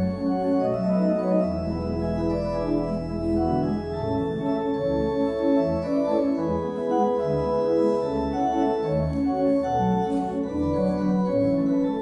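Organ playing a multi-voice passage: held chords whose notes shift every second or so, with a moving bass line underneath.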